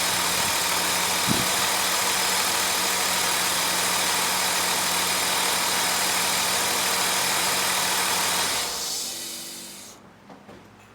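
Ford Taurus 3.0-litre Duratec DOHC V6 idling steadily on a new PCV valve and vacuum hose, an idle the owner judges fixed after the collapsed hose had made it rough. The sound dies away about nine seconds in.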